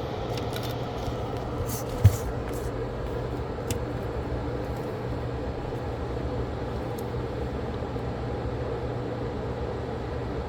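Steady whir of a fan or blower running on the electronics repair bench, with a few light clicks of tools on the board, the sharpest about two seconds in.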